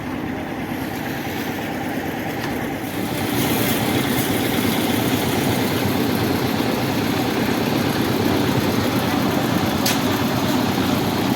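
Concrete mixer machine's engine running steadily, getting louder about three seconds in and then holding.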